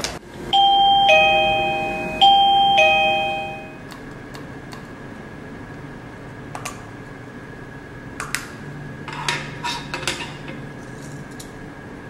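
MoniSee wireless doorbell chiming a two-note ding-dong, high note then low, twice in a row, each note ringing out. After the chime fades, a few faint plastic clicks as the push button's top cover is pulled off.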